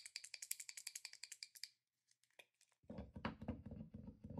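Acrylic paint marker being shaken, its mixing ball rattling in quick, even clicks that stop a little under two seconds in. About a second later comes a run of dull taps as the marker's tip is pressed repeatedly against paper to get the paint flowing.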